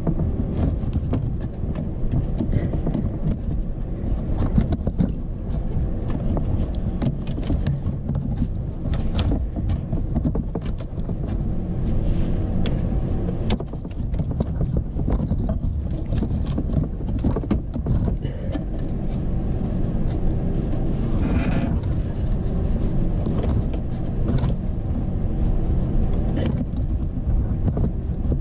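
Scattered clicks and taps of a wrench on metal as the nut on a starter motor's cable terminal is tightened, over a steady low rumble.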